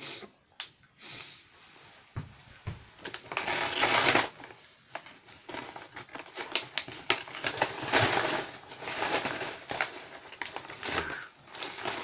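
Paper microwave bag of pork rinds crinkling and rustling as it is handled and pulled open, with many sharp crackles, starting about three seconds in.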